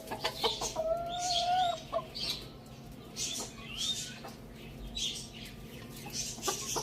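Chickens clucking, with one drawn-out, even-pitched call lasting about a second, starting about a second in. Repeated high chirps from small birds run throughout.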